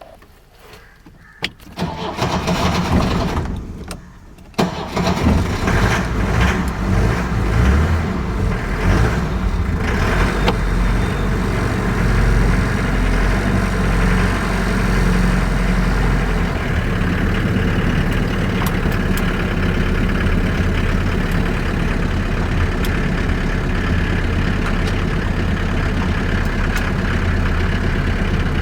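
1968 Mercedes-Benz W115's engine being started: a first attempt about two seconds in stops after a couple of seconds, then a second attempt about four and a half seconds in starts the engine. It runs unevenly at first and settles to a steady idle.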